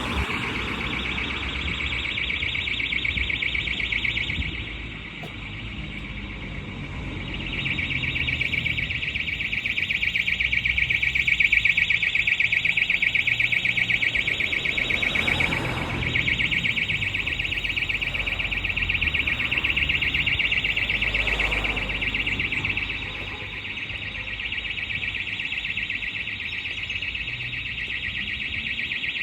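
Fire alarm sounding continuously, a steady high-pitched buzzing tone that gets louder for a stretch in the middle and then eases back.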